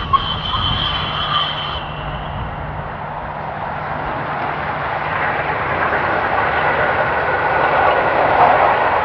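LNER V2 steam locomotive 'Green Arrow' running with its train, a steady rumble that grows louder over the last few seconds.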